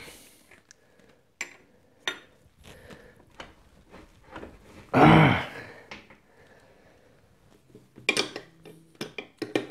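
Steel wrenches clinking and clicking against a crank puller on a bicycle crank arm as it is forced. About five seconds in, a loud strained grunt from the effort; the crank is very hard to pull off.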